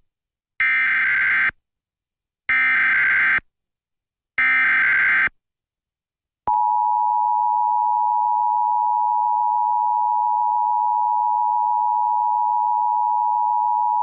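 Emergency Alert System tornado warning on FM radio: three short bursts of SAME digital header data, each just under a second, then about six and a half seconds in the steady two-tone EAS attention signal starts and holds.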